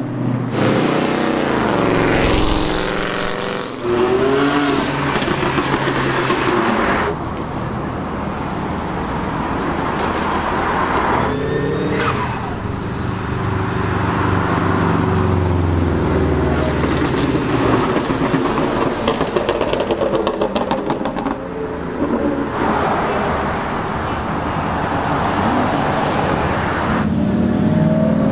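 Several performance cars, among them Ford Mustangs and a Subaru Legacy GT, pulling away and accelerating past one after another, engines revving with the pitch rising and falling several times. The sound changes abruptly every few seconds as one car gives way to the next.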